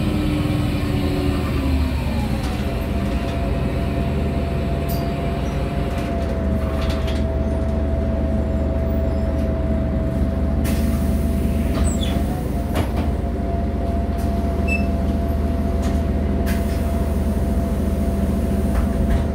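Mercedes-Benz O345 Conecto city bus heard from inside the cabin: the engine note drops in the first few seconds as the bus slows, then settles into a steady hum with a constant whine while stopped. Two hisses of compressed air come about halfway through and again later, as the pneumatic doors open and close.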